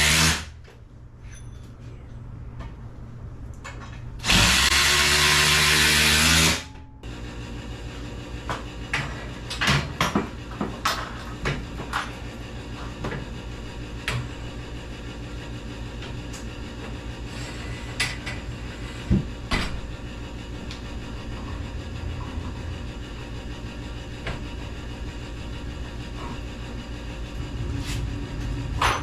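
A power drill runs in two bursts, the first ending just after the start and the second about two seconds long, starting about four seconds in. After that, scattered clicks and knocks sound over a steady low hum.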